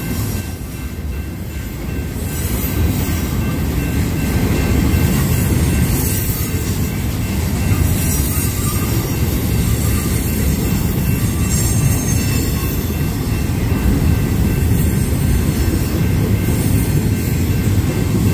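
Intermodal freight train of double-stack well cars rolling past close by: a steady heavy rumble of steel wheels on the rails that grows a little louder about two seconds in, with faint steady high tones above it.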